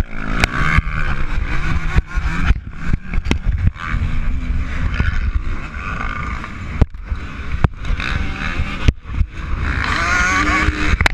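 Kawasaki KX125 single-cylinder two-stroke motocross engine revving hard, its pitch rising and falling as the throttle is opened and chopped, with a strong low rumble and several sharp clicks and knocks.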